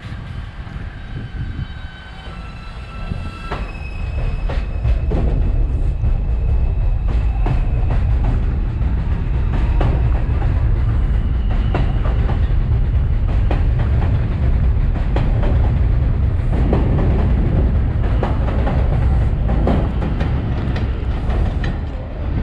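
R142-family subway train pulling out. Its propulsion motors whine in stepped tones, then about four seconds in the cars pass loudly, rumbling, with wheels clacking steadily over the rail joints.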